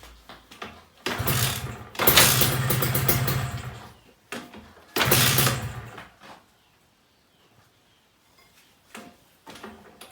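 Two-stroke Kawasaki Ninja single-cylinder engine being started after a rebuild: it fires and runs for a second or two, then dies away, a few times over.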